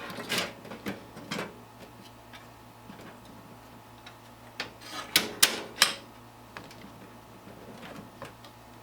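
Sharp clicks and light knocks of computer hardware being handled in a PC case, loudest as three quick clicks about five to six seconds in.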